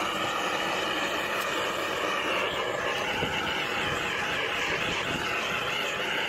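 Hose-fed gas torch burning steadily as it shrinks the outer heat-shrink sleeve onto a medium-voltage cable joint.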